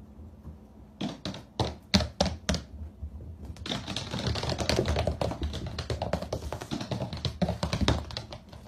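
Goat kids' hooves clattering on a hard wooden floor: a few separate taps about a second in, then a quick, dense patter of hoof clicks from a few seconds in as they come trotting up.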